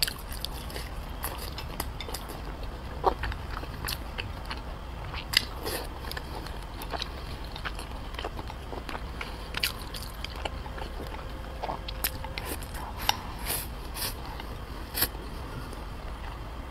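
Close-miked mouth sounds of someone eating soft red-braised pork belly with rice: wet chewing with scattered sharp clicks and smacks.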